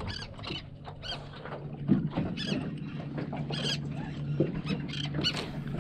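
A flock of seabirds calling over the water: short, high squealing calls, about three a second, over a steady low hum.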